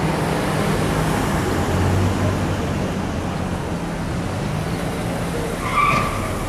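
Steady outdoor street rumble with a low hum, like vehicles and engines running nearby, and a brief higher tone near the end.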